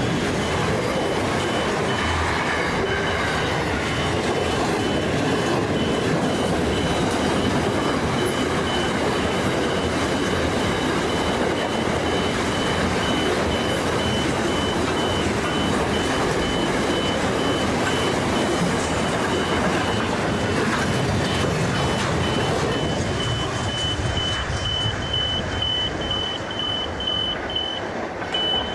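Container freight train's wagons rolling past on the track, a steady dense rumble and rattle of wheels that thins out near the end as the last wagon clears. A repeated high electronic beeping sounds throughout and stands out more once the train has passed.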